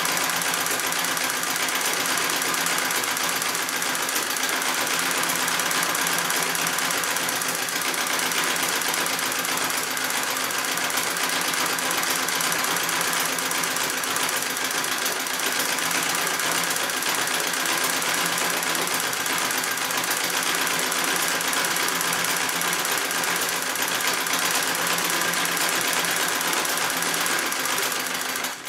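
Singer 66 treadle sewing machine running steadily at speed while free-motion quilting, a continuous mechanical clatter of needle and treadle works, stopping suddenly at the very end.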